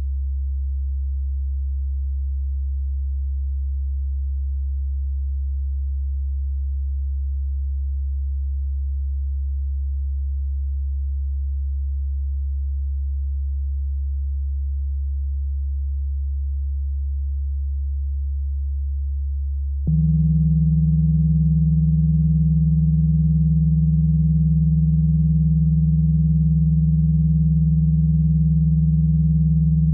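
Electronic drone of pure sine tones: one very low steady tone holds unchanged, then about twenty seconds in a louder, higher steady tone enters suddenly with faint overtones above it.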